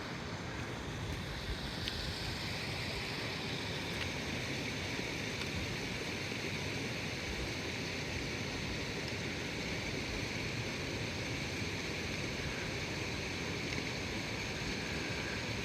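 Wind buffeting the microphone with a low, uneven rumble over a steady rushing hiss.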